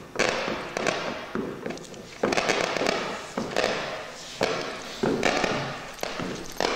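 Loudspeaker of a sound sculpture, with a mummified mouse lying on its cone, giving out bursts of crackling noise about once a second, each starting sharply and fading away.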